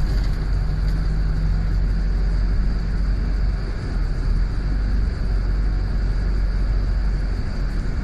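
Inside a moving double-decker bus: a steady low engine rumble and road noise heard from the upper deck, with no sudden events.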